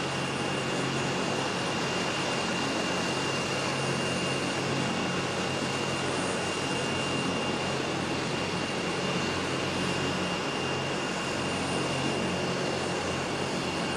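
Agusta A109E helicopter's twin turbine engines running steadily: a constant high whine over an even rush of engine and rotor noise.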